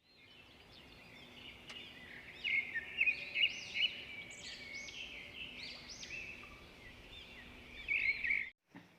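Several birds chirping and singing at once, with many overlapping calls; the sound fades in at the start and cuts off suddenly near the end.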